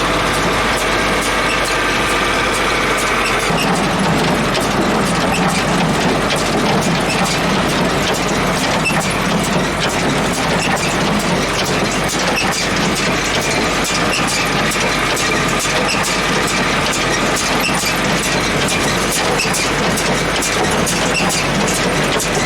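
John Deere hay baler running, its mechanism clattering steadily under a high squeal. The squeal fades about a third of the way in and comes back in the second half.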